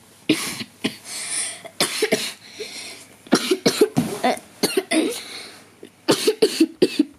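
A person coughing repeatedly in short, sharp coughs, bunched in several bouts, with a quick cluster near the end.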